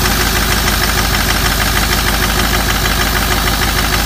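6.0L Power Stroke diesel V8 idling steadily with a rapid, even diesel clatter, just started on its first run after a head gasket and head stud job.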